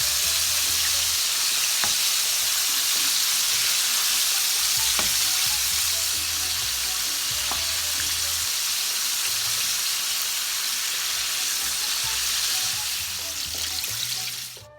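Flour-coated chicken drumsticks deep-frying in hot oil: a steady, dense sizzle, with a few light clicks as the pieces are turned over. The sizzle cuts off just before the end.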